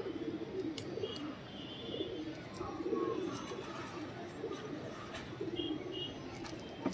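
Domestic pigeons cooing: low, throbbing coos that come again every second or two, with a few faint high chirps behind them.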